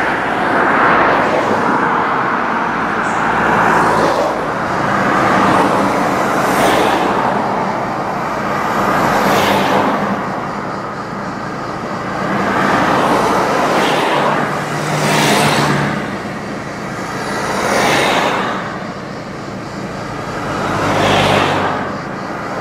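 Road noise from a moving car: a steady low engine hum under tyre and wind noise that swells and fades every two to three seconds, with passing vehicles swishing by.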